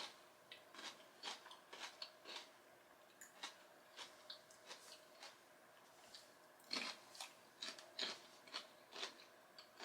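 A person chewing crispy fried chicken close to the microphone: faint, irregular crunches and wet mouth clicks.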